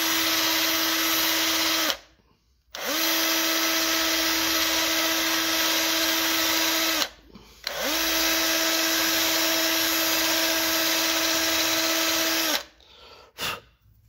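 Cordless drill running at a steady speed with a 1 mm bit, reaming out the brass injector jets of a gas water heater's burner to widen them for LPG. The bit goes in easily because the jets were already drilled to 0.90 mm. It runs in three bursts, each spinning up briefly and stopping with a short pause between, followed by a couple of light clicks near the end.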